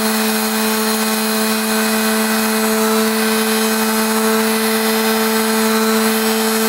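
Electric mouse detail sander running at full speed, a steady motor hum with a hiss from the sanding pad as it is passed lightly over a workpiece.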